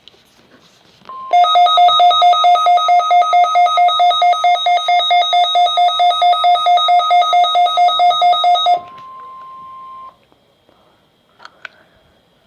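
A weather alert radio's pulsing alarm beep, about five beeps a second for some seven seconds, sounding over the NOAA Weather Radio broadcast's steady warning alarm tone. When the beeping cuts off, the steady tone carries on alone for about a second. This alarm marks the weekly test of the warning system, and a couple of faint clicks follow near the end.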